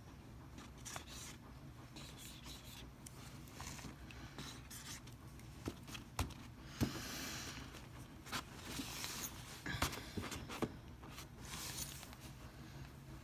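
Faint handling noises: light rustling and scraping of paper with a few sharp clicks, from hands working a small squeeze bottle of alcohol ink over the paper.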